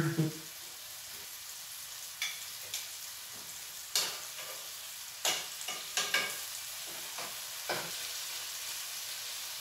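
Chicken pieces frying in oil in a hot pan, a steady sizzle, with about half a dozen sharp knocks of cookware scattered through it.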